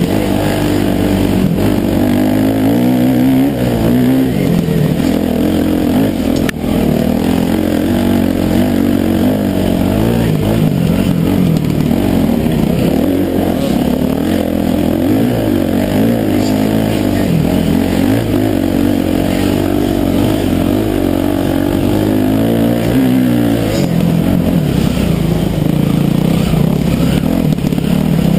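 Off-road dirt bike engine running hard, its pitch rising and falling again and again as the rider works the throttle and shifts along a rough trail. A single sharp knock sounds about six seconds in.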